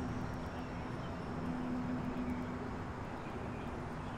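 Steady background traffic noise with a constant low engine hum.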